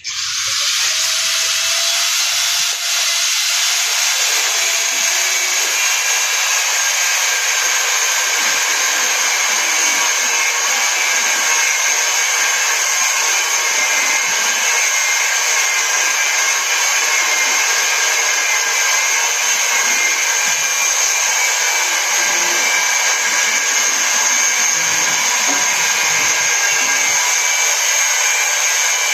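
A small high-speed electric motor, such as a power tool's, switches on abruptly and runs steadily with a high whine, without changing speed.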